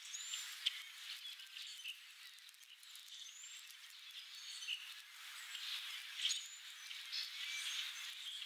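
Small birds giving short, high chirps here and there over a steady outdoor hiss, with a few sharp clicks and rustles, the loudest about half a second in and again about six seconds in.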